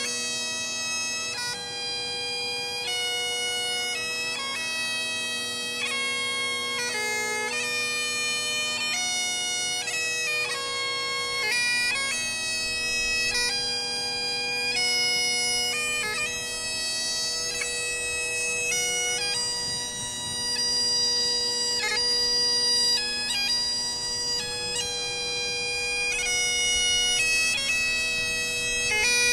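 Great Highland bagpipes played solo: a slow melody on the chanter, notes changing about once a second, over the continuous drones.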